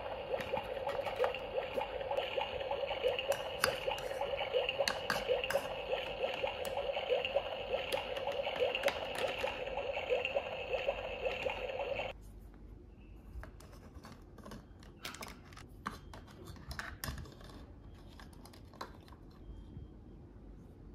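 Toy electronic cooktop playing a steady bubbling, boiling-water sound effect through its small speaker, which cuts off suddenly about twelve seconds in. After that, light clicks and taps of plastic toy cookware and play food being handled.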